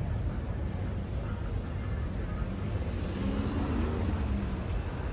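City street traffic: a steady low rumble of passing cars and their engines.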